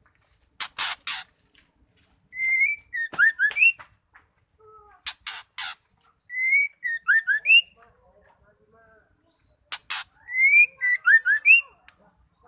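White-rumped shama singing the same phrase three times: a couple of harsh rasping notes, then clear whistled notes that slide up and down, with high twittering above them.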